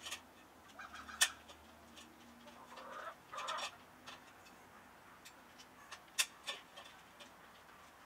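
Chickens clucking softly in short calls, with scattered sharp clicks, the loudest about a second in and around six seconds in.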